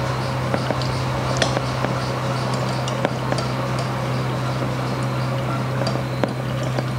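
Faint scattered clinks of a glass conical flask being swirled under a burette during a titration, over a steady low hum.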